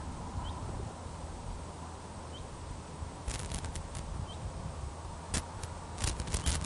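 Low wind rumble on an outdoor microphone, with a small bird's faint high chirps about every two seconds and scattered sharp clicks, clustered around the middle and near the end.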